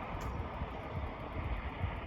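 Wind buffeting the microphone in uneven low rumbles over a steady rushing noise.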